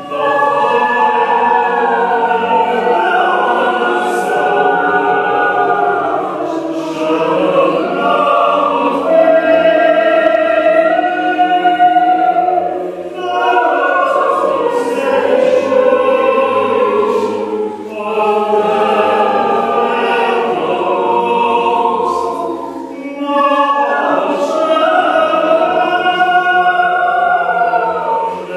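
Mixed choir of men and women singing a contemporary piece without accompaniment, with many voices in overlapping lines that slide in pitch. The phrases break off briefly three times and start again.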